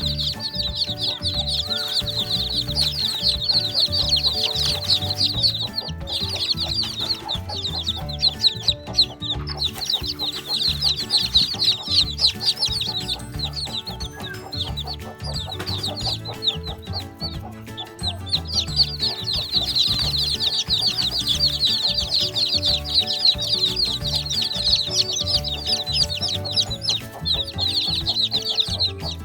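A brood of young chicks peeping together continuously, many high chirps at once, thinning out briefly in the middle, over background music.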